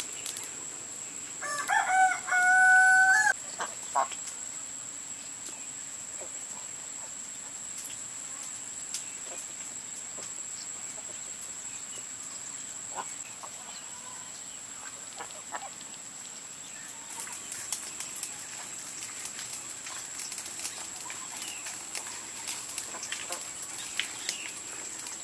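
A rooster crows once about two seconds in, ending on a long held note; it is the loudest sound. A steady high-pitched drone runs underneath throughout, and scattered crackling ticks come in over the last third.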